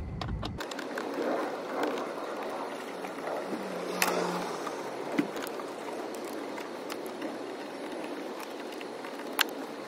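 Hand-working noise in an engine bay, over a steady background hiss: a few sharp clicks and knocks from handling hoses and fittings, the strongest about four seconds in and another near the end.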